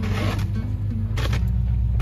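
Background music over two scrapes of a plastic snow shovel pushing through snow, with a low vehicle engine rumble building underneath.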